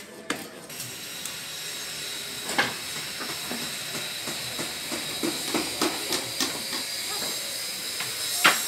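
Construction-site ambience on a rebar and formwork deck: a steady high hiss, with light knocks and clinks now and then from work on the steel rebar cages.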